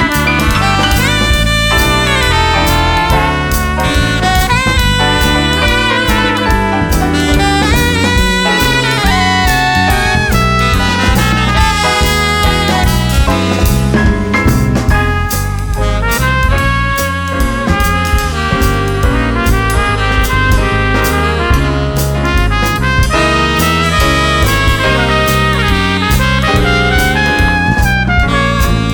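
Jazz band playing, with brass lead lines sliding and bending over bass and drum kit.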